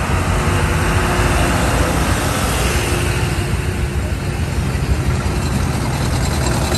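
Tractor engines running as tractors pass at walking pace: one passes close at first, then an older tractor draws near, its steady engine note coming in about halfway through.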